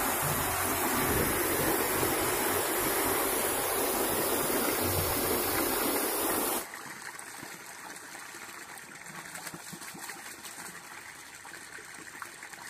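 Muddy water gushing over a concrete inlet lip and splashing down into a borewell recharge pit chamber, a loud even rush. About six and a half seconds in it cuts off suddenly to the quieter splashing of water pouring from a pipe into a muddy ditch.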